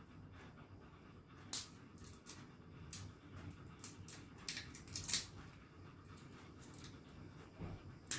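Close-up eating sounds: irregular sharp, wet clicks and smacks of chewing and handling food, about a dozen spread over several seconds, the loudest about five seconds in.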